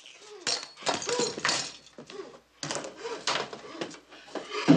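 Short, breathy non-verbal vocal sounds in irregular bursts, like gasps and sobbing breaths, with brief quiet gaps between them.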